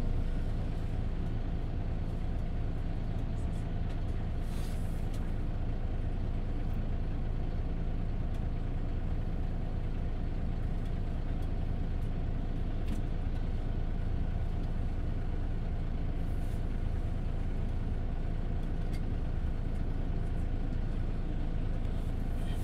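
Interior sound of a Volvo 8900LE city bus under way: the diesel engine drones steadily under road and tyre noise. Brief hisses come about four and sixteen seconds in and again near the end.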